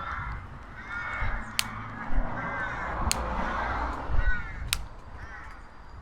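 Crows cawing, a string of short harsh calls about once a second, with a few sharp clicks in between.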